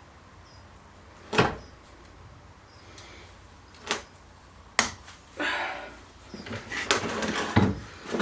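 Hand tools and metal parts clanking against a bench vice while a front screw is being worked loose: three sharp knocks a second or more apart, then scraping and rattling with more knocks near the end.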